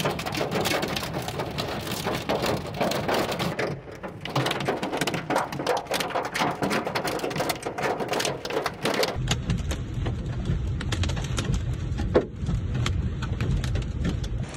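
Hail and heavy rain pelting a car's windshield and roof, heard from inside the car as a dense clatter of impacts. About nine seconds in, the sound changes to a deeper, steady rumble with fewer distinct hits, with one sharp knock a few seconds later.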